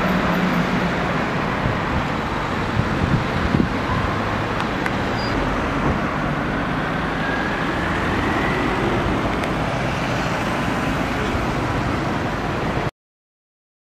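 Steady street traffic noise from cars and vans running on the road, cutting off abruptly near the end.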